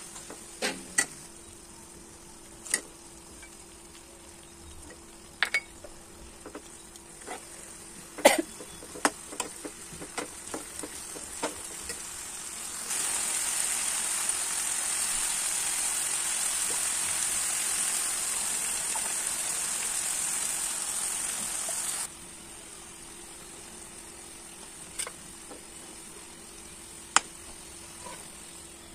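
Mutton curry sizzling in a nonstick kadai while a steel spatula stirs it, with sharp clicks of the spatula against the pan now and then. About halfway through, a louder steady sizzle runs for some nine seconds and cuts off suddenly.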